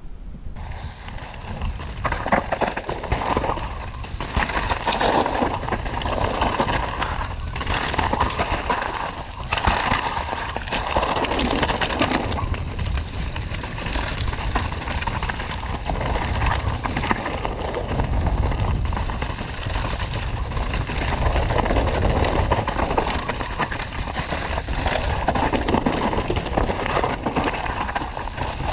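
Mountain bike descending a rough trail: continuous rumble of the tyres with a steady run of rattles and knocks as the bike goes over rocks and roots, and wind on the microphone.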